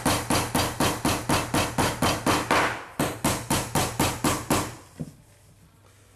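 Small hammer rapidly tapping panel pins into a glued timber box corner, about five quick blows a second, with a brief pause about three seconds in, then stopping.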